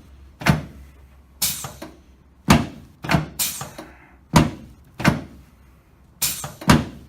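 A run of about nine sharp thumps, roughly one a second and sometimes in quick pairs, from a chiropractor's directional thrusts adjusting a patient's sacroiliac joint and sacrum.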